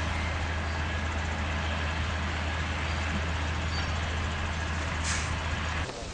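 Heavy truck's diesel engine idling, a steady low drone that stops abruptly near the end.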